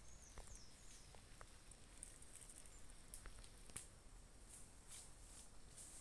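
Near silence with a few faint, scattered crackles and ticks, like footsteps and brushing on dry leaf litter and twigs in forest understory.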